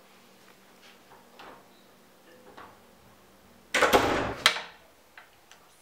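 A few faint footsteps, then a wooden interior door swung shut about four seconds in: a loud rush of about a second ending in a sharp click as it closes.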